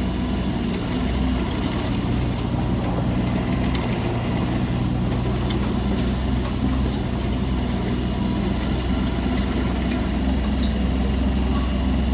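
Diesel engine of a JCB 15C compact excavator running steadily.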